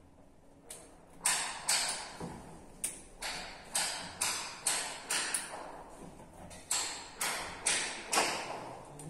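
A run of about fifteen sharp knocks, roughly two a second, each ringing briefly, starting about a second in.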